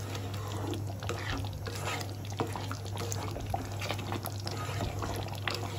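Thick, creamy shahi paneer gravy simmering in a pan, with small soft bubbling pops. A spatula is stirred through the gravy in the latter part.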